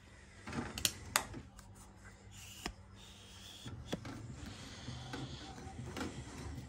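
HP Ink Tank 319 inkjet printer going through its power-on initialisation: faint motor whirring with several sharp mechanical clicks, and a higher whine from about three to five seconds in.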